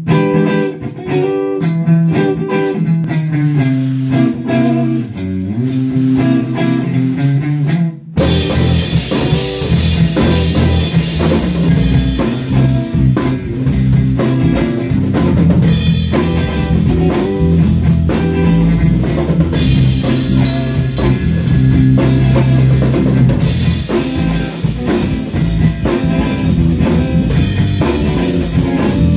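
A live rock band playing in a small room. Electric guitar and bass guitar play with only light ticks for about the first eight seconds, then the drum kits come in and the full band plays on.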